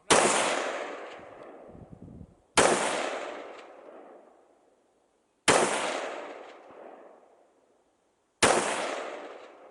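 Four single rifle shots fired a few seconds apart, each a sharp crack followed by a long echo that dies away over about two seconds: slow aimed fire at long-range steel targets.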